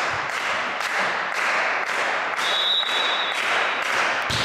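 Spectators clapping in a steady rhythm, about two claps a second, echoing in a large sports hall. A brief high whistle tone sounds about two and a half seconds in, and a sharp smack comes near the end.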